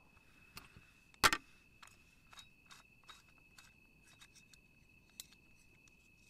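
Handling noise from a cylindrical metal coffee kit: one sharp metal click about a second in, then a run of light clicks and taps as its screw-on end cap is turned and pulled off.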